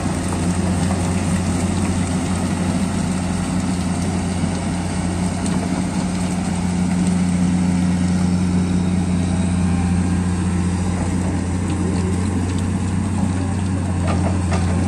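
Komatsu PC200 hydraulic excavator's diesel engine running steadily at an unchanging speed, a deep even hum.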